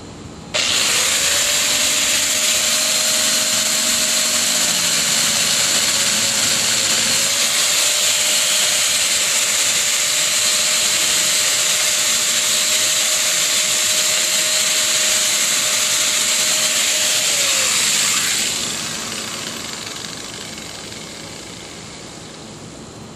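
Corded angle grinder with a metal cut-off wheel switched on and cutting through PVC pipe, a loud steady whine with one dip in pitch partway through. Near the end it is switched off and winds down.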